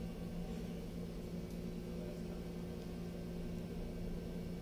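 A steady low hum with an even hiss behind it, unchanging throughout.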